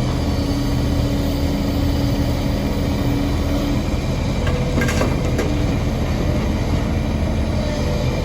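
Heavy diesel engine of a Kobelco excavator running steadily under load, with a steady whine that stops about four seconds in and a brief clatter about five seconds in.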